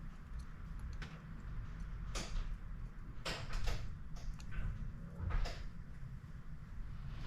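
Scattered small clicks, taps and brief scrapes of hand work at a soldering bench, handling the soldering iron, solder and circuit board, over a low steady hum.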